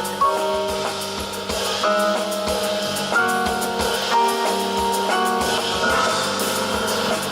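Jazz piano trio playing live: piano chords and melody notes that change every second or so, over bass and a drum kit with frequent cymbal strokes.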